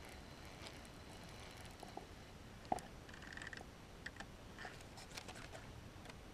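Faint scattered clicks and ticks of a baitcasting reel being handled, with one sharper click near the middle.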